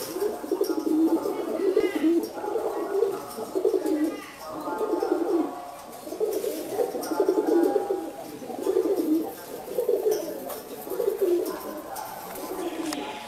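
Domestic pigeons cooing: a steady string of low, repeated coos, about one phrase a second.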